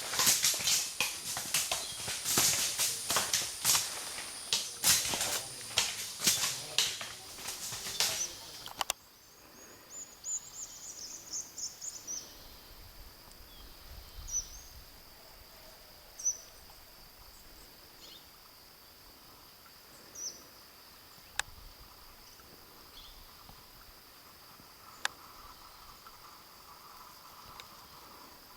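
For the first nine seconds, loud irregular crackling and knocking noise. Then, after a sudden cut, forest ambience: a steady high insect drone with short bird chirps every few seconds and an occasional sharp click.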